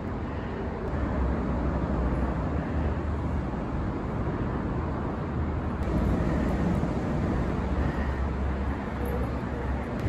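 Steady traffic rumble: a low drone with a hiss of road noise over it.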